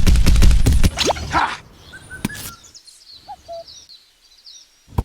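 A loud low rumble for about the first second cuts off. Faint bird chirps follow, with a sharp click near the middle and another near the end.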